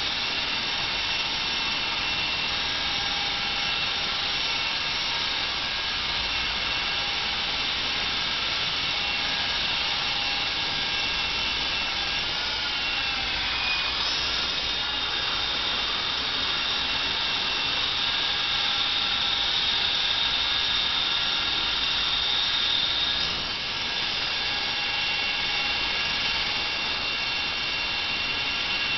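Honeybee electric RC helicopter flying, its motor and rotor giving a steady whine of several pitches. The pitch sags and recovers about 13 seconds in, and the sound dips briefly near 23 seconds.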